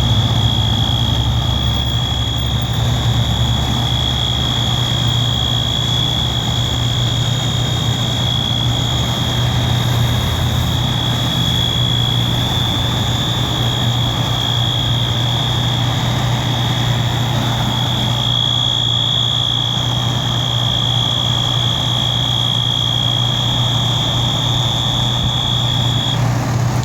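Wheelock MT fire alarm horn sounding one continuous high-pitched tone, cutting off near the end as the alarm is silenced, over a fire truck's engine idling.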